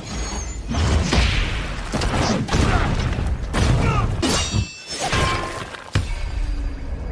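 Animated fight sound effects: a rapid series of crashes, shattering rock and whooshes, with a brief metallic ring about four and a half seconds in and a sharp hit about six seconds in.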